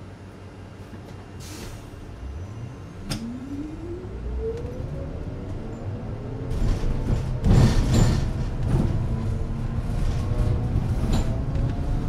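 City bus machinery heard from inside the cabin: a whine that rises steadily in pitch over a few seconds and then holds, with a single click early in the rise. A louder rush of hissing noise comes about six and a half seconds in.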